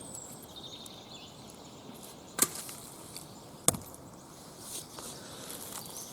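Two sharp clicks a little over a second apart, from the Victorinox Soldier pocket knife being handled, over a faint outdoor background.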